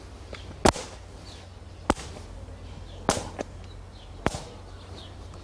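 Slow footsteps on the ground: four sharp knocks evenly spaced a little over a second apart, over a low steady hum.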